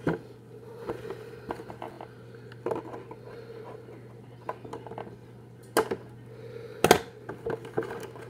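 Scissors cutting the plastic ties and packaging that hold a toy dinosaur figure, with handling of the plastic and cardboard. This makes scattered small clicks and snips, and two louder snaps about a second apart near the end, over a steady low hum.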